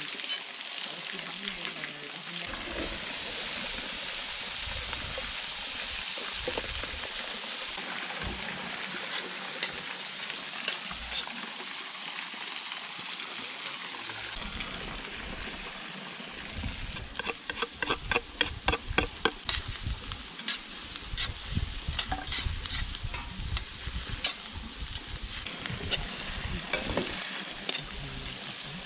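Butter and food sizzling in a frying pan, with a utensil stirring and scraping in it. A bit over halfway through comes a run of quick, rapid strokes, then scattered ones.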